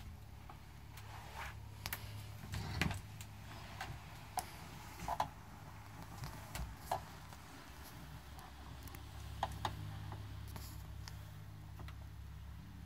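A steady low hum with scattered light clicks and knocks, the loudest knock about three seconds in.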